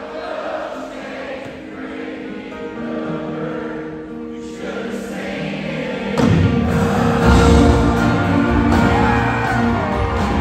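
Live country band in an arena, heard from the crowd. Soft, sustained accompaniment with singing gives way about six seconds in to the full band coming in loud with drums and bass.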